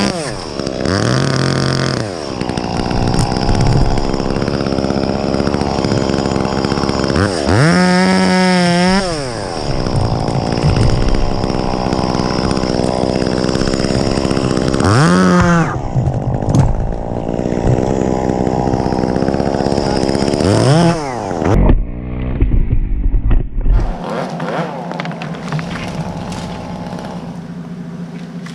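Gas chainsaw running loud, its engine revving up and dropping back several times as it works. Near the end the saw cuts out and a steadier, lower engine sound carries on.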